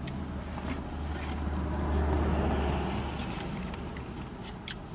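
Low vehicle rumble heard from inside a parked car, swelling about two seconds in and then fading. A few faint clicks sound over it, and the biting into a burger comes near the end.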